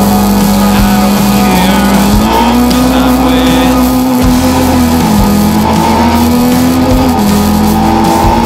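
Background music with a steady bass line, laid over a rallycross car's engine running.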